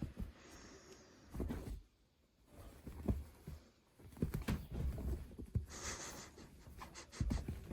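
Bedding rustling with irregular soft thumps and taps, with a brief lull about two seconds in.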